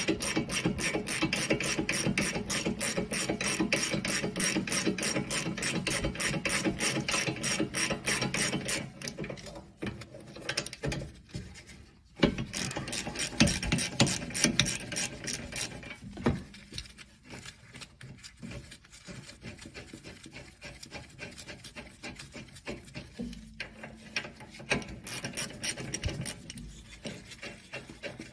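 Hand ratchet with a 19 mm socket clicking rapidly as the rear brake caliper bracket bolts are backed out. The clicking is steady for about the first nine seconds, then comes in shorter runs and more quietly.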